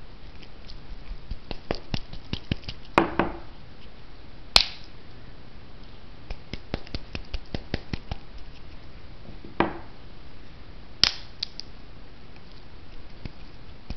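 Glow sticks being bent and cracked by hand: a few sharp snaps as the inner glass vials break, with runs of small crackles and clicks between them. The snapping mixes the chemicals inside so the sticks start to glow.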